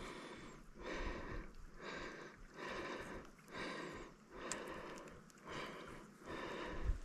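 A person breathing hard and fast close to the microphone, soft rhythmic breaths about one a second, with one faint tick near the middle.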